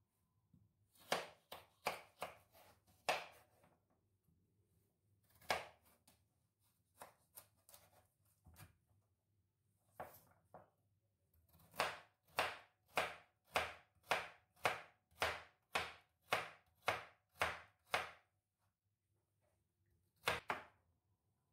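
Knife chopping on a cutting board. A few scattered cuts come first, then a steady run of about two strokes a second for around six seconds, and a last stroke near the end.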